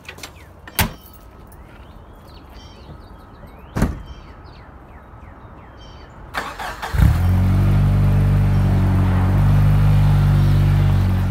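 Jeep Wrangler engine starting about seven seconds in and settling into a loud, steady idle, heard from behind at the exhaust.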